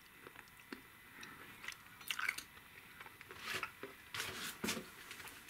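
Close-up chewing of a mouthful of chocolate-coated peanut, peanut butter and caramel snack bite: faint wet mouth clicks and crunches, with louder bursts of crunching about two seconds in and again over the last couple of seconds.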